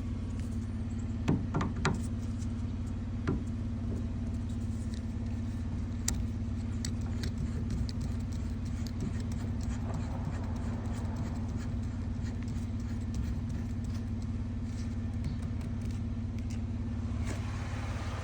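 Vehicle engine idling steadily, with a few sharp clicks in the first few seconds.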